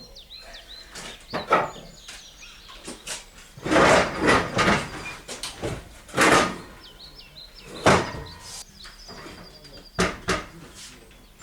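Objects being handled and knocked about: a string of irregular knocks and clatters with longer stretches of scraping or rustling, the busiest a third and half of the way through. Birds chirp faintly in the background.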